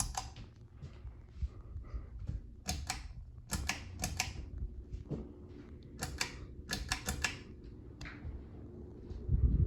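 Newly installed 44-inch Ashby Park ceiling fan running, a low steady hum with a faint motor tone that comes in around the middle, under a scatter of irregular sharp clicks and taps.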